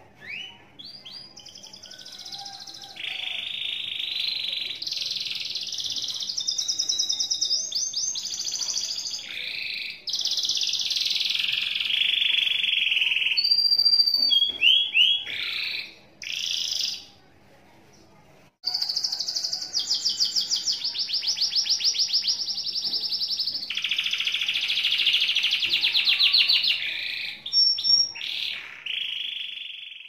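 Domestic canary singing a long rolling 'ngekek' song: runs of very fast repeated notes strung into extended trilled phrases, with a pause of about two seconds a little past halfway.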